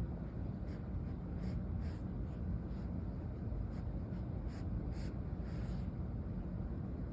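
A cat snuffling through its nose: a string of short, breathy nasal snorts at irregular intervals, roughly one every half second to second, over a steady low rumble.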